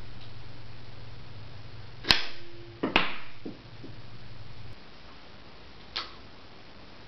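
Small spring-powered wooden catapult firing: a sharp snap as the arm is released, then, just under a second later, the steel ball striking hard twice and bouncing a couple of times. A smaller click comes near the end.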